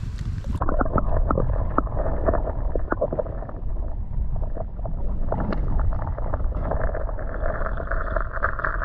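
Muffled sloshing and bubbling of creek water, heard with the microphone underwater, full of small clicks and knocks as a smallmouth bass is released by hand. It turns muffled suddenly about half a second in.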